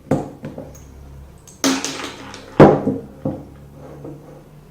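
Metal clicks, a brief scrape and clinks of a screwdriver working the locking collar of an LPG gas cylinder regulator, with one sharp knock about two and a half seconds in.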